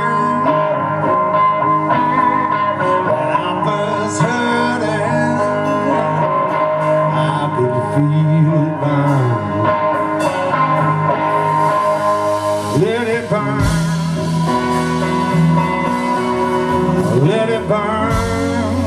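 Live blues band playing: electric guitar over bass guitar and drums.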